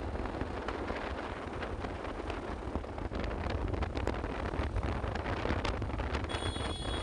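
Wind buffeting the phone's microphone on a moving two-wheeler, over a low rumble of road and engine. A high steady tone sounds near the end.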